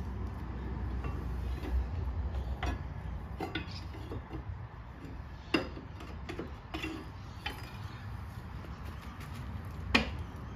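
Scattered metallic clinks and knocks of hand tools on the steel undercarriage of a mini excavator as the rubber track's tension adjuster is being loosened, the loudest knock about ten seconds in, over a low steady rumble.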